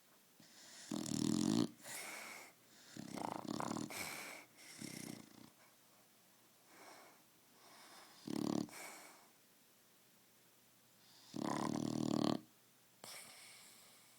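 A dog snoring in its sleep: a string of loud, rough snores, each with a softer breath between, and a pause of a couple of seconds midway.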